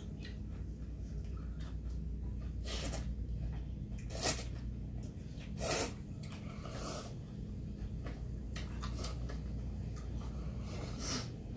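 Two people slurping ramen noodles: a string of short, noisy slurps a second or so apart, the loudest about four and six seconds in, over a steady low hum.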